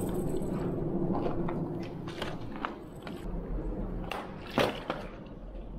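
Footsteps scuffing and knocking on loose rocks and gravel: a few sharp knocks, the loudest about four and a half seconds in, over a low steady rumble.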